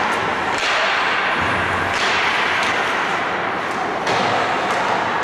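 Ice hockey play in progress: steady hiss of skates on the ice, with several sharp knocks and slaps of sticks and puck against the ice and boards.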